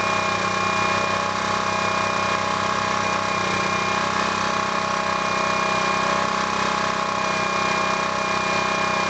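DuroMax MX1500 portable generator's small engine running steadily with no load, an even, unchanging hum.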